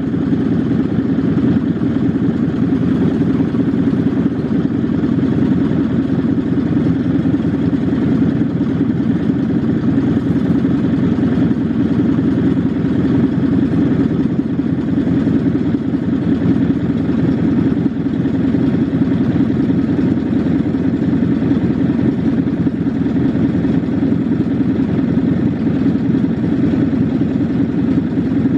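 Craftsman lawn mower's small engine running steadily just after a cold start.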